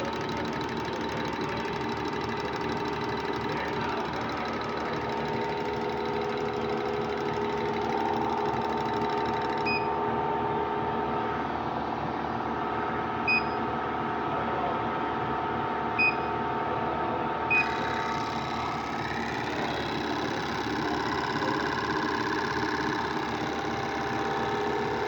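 Petrol fuel injectors being run, a steady rapid mechanical clicking, with three short high beeps partway through.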